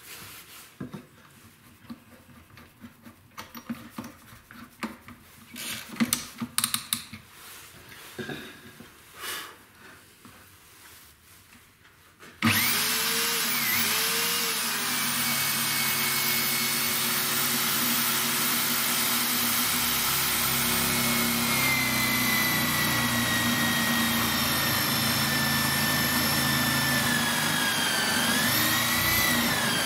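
Bosch GSB 21-2 RE corded drill, mounted in a drill stand, switching on about twelve seconds in and running steadily while a 20 mm Forstner bit cuts holes through plywood; its pitch sags briefly near the end. Before it starts, a few knocks and handling sounds as the board is set in place.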